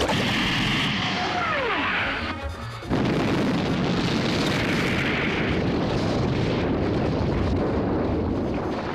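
Cartoon sound effects of a long fall and a huge impact: a whistle that slides down in pitch over about two seconds, then about three seconds in a loud crash that goes on rumbling for several seconds as the ground is smashed into a crater.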